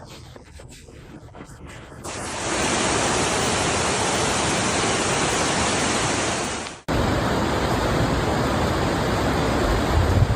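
Loud, steady rushing of floodwater. It starts abruptly about two seconds in after a quieter stretch, breaks off sharply near seven seconds, and resumes at once with more low rumble.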